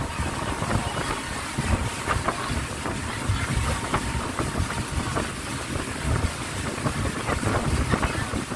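Wind buffeting the microphone on an open speedboat under way, over the steady noise of the boat's engine and the water, with irregular low gusts.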